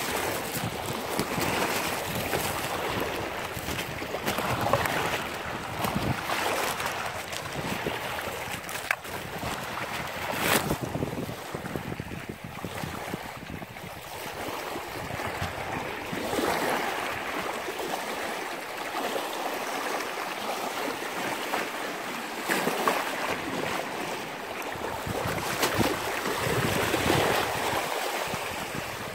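Small sea waves washing in at the shoreline, swelling and easing every few seconds, with wind buffeting the microphone.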